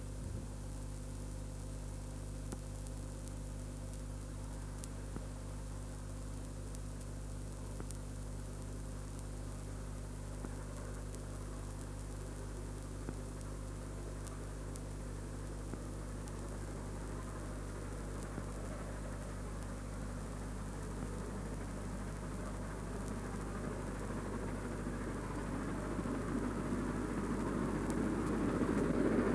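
Steady recording hiss and mains hum, with the exhaust of two South African Railways GMAM Garratt steam locomotives working a train growing steadily louder over the last ten seconds or so as they approach.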